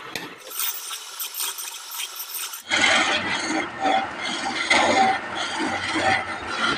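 Hand-held turning chisel scraping into a wooden cylinder spinning on a lathe, cutting grooves in it. The cutting noise turns abruptly louder and fuller about three seconds in.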